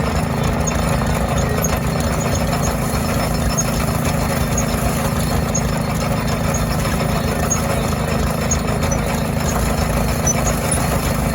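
Antique tractor engine idling steadily with a low, even hum.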